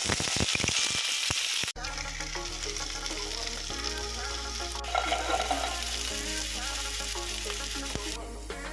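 Food sizzling as it fries in hot oil in a pan, with a quick run of clicks and scrapes in the first couple of seconds, then a steady sizzle under background music.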